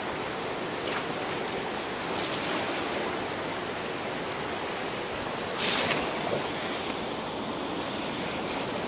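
Steady rushing of whitewater river rapids, with a short louder burst of noise just past halfway.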